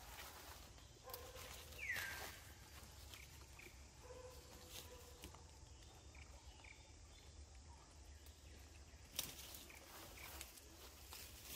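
Faint forest ambience with soft rustling and scattered clicks, a short falling squeak about two seconds in, and a sharp click about nine seconds in.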